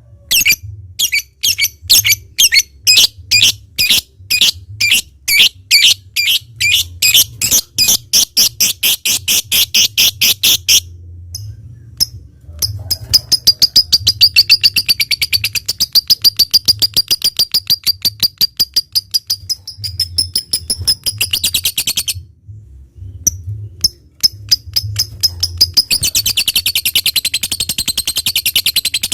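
Lovebird song: a run of sharp, ticking notes that come faster and faster ("ngetik"), then, after a short pause, a long, rapid chattering trill ("ngekek") that breaks off briefly and starts again near the end.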